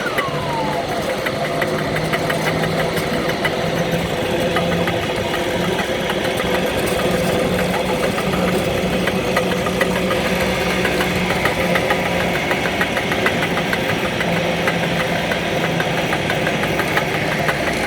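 Tarabita cable car running on its gasoline-engine cable drive: a steady mechanical hum with a fast, continuous ticking rattle as the cabin is hauled along the cable.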